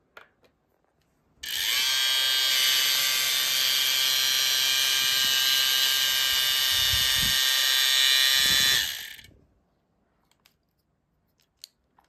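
The small electric motors of a disassembled 2002 first-generation Roomba spinning up about a second and a half in, after its start button is pressed. They run with a steady high whine for about seven seconds, then wind down: a test run of the unit under repair.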